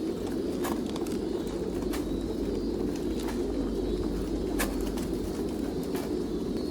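A flock of domestic pigeons cooing together in a steady, continuous low chorus, with a few sharp clicks scattered through it.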